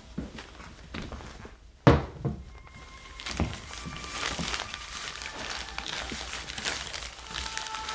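A ceramic mug set down on a glass-topped table with a sharp thunk about two seconds in, followed by a couple of lighter knocks. From about halfway through comes a steady crinkling rustle of paper as a wrapped object is unwrapped.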